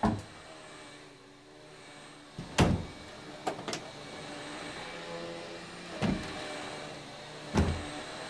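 Upright vacuum cleaner running with a steady motor hum, its head knocking sharply against a wooden door several times; a door thuds shut at the start.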